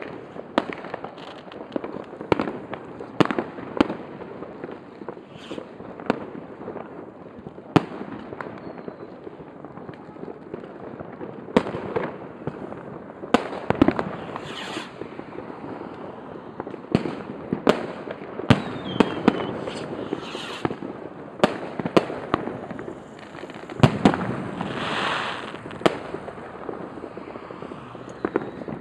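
Fireworks and rockets going off: many sharp bangs at irregular intervals over a continuous bed of distant crackling explosions. Two longer hisses stand out, one midway and one near the end.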